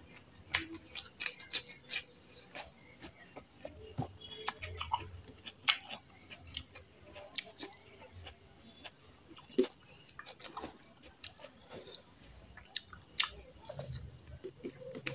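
Close-miked chewing and lip-smacking of a person eating rice, curry and salad by hand: many irregular wet clicks and smacks.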